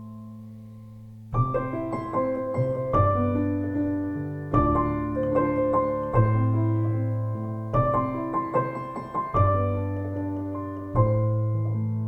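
Slow piano music: chords struck about every one and a half seconds, each ringing out and fading before the next.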